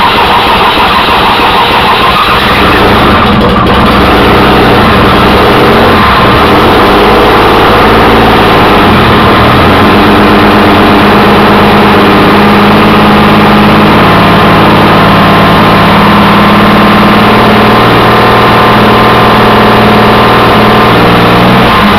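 Chevrolet Corvair air-cooled flat-six engine running loud and rough. Its speed wanders over the first several seconds, then it settles into a steadier run. It is still not firing on all six cylinders.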